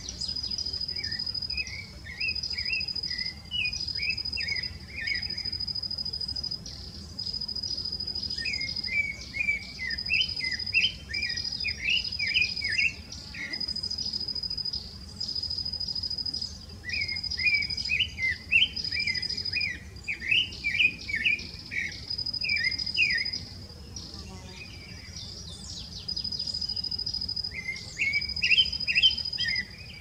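Creamy-bellied thrush (sabiá-barranco) singing in four bouts of quick, varied warbled notes, each a few seconds long with pauses between. Behind it an insect keeps up a steady high trill that breaks off and resumes every second or two.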